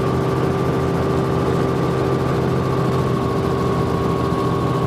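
Helicopter heard from inside its cabin in flight: engine and rotor running with a steady, loud hum of several even tones over a rushing noise.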